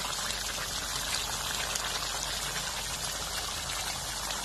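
Vegetable kurma simmering in a steel pot: a steady, dense crackle of small bubbles popping through the thick coconut gravy, with a ladle scooping through it.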